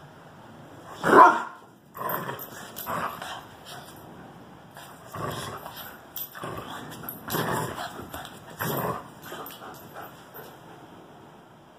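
Dogs at play barking: one loud bark about a second in, then a run of shorter, quieter barks.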